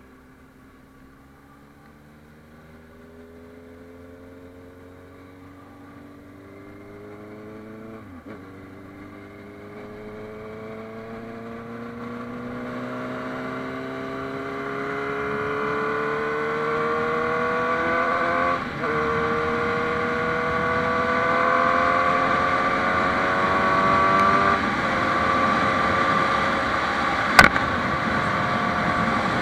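Honda CB650F inline-four motorcycle engine accelerating up through the gears, its pitch climbing steadily in each gear and dropping at three upshifts. Wind rush grows louder as speed builds, and there is one sharp click near the end.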